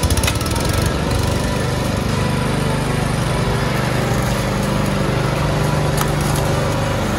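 Masport petrol rotary push lawn mower running steadily as it is pushed across grass, with a few sharp clicks.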